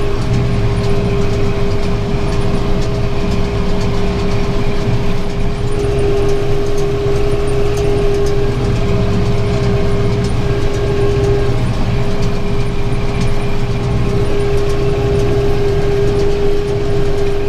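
Tractor engine running steadily under load while pulling a working round baler, heard from inside the cab: a low drone with a steady whine above it.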